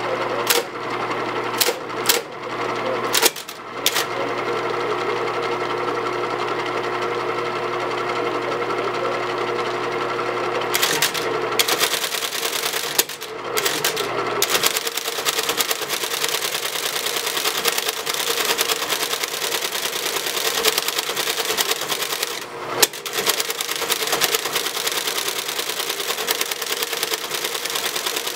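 1959 Friden SFD Flexowriter electric typewriter: its motor hums steadily while a few keys are struck one at a time, then from about eleven seconds in it prints on its own in a fast, continuous clatter, with a couple of short pauses and one louder clunk about two-thirds through.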